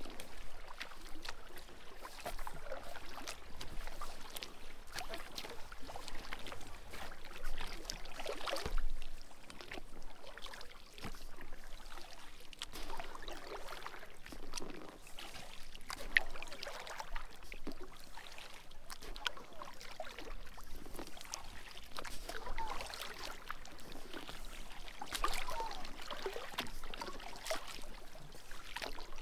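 Water lapping and trickling against a kayak, with small irregular splashes.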